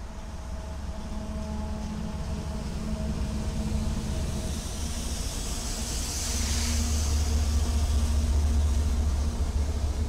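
Several diesel-electric freight locomotives in a row rolling past close by, their engines giving a deep rumble and drone that grows louder about six seconds in as the units pass nearest. A brief hiss rises over it around six to seven seconds in.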